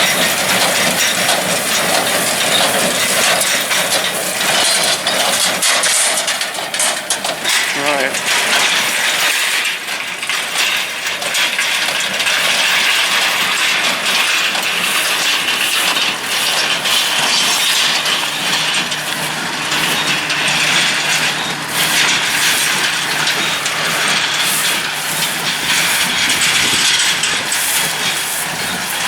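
A tractor and a New Holland small square baler running, a continuous busy mechanical clatter with many quick clicks over a steady engine hum.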